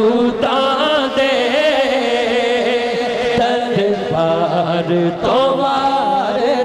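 A man singing a Punjabi naat into a microphone, in long, ornamented melodic lines.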